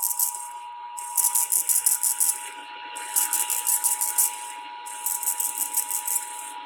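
Emergency Alert System attention signal: a steady alarm tone that holds without a break. Over it, louder, run rhythmic high-pitched rattling hiss pulses, one roughly every two seconds.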